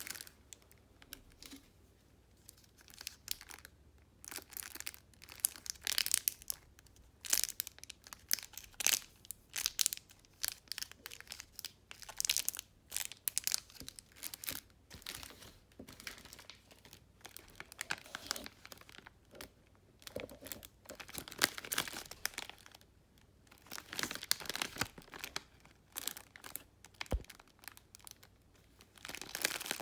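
Crinkling and rustling of handled plastic packaging, in many short, irregular bursts with brief pauses between them.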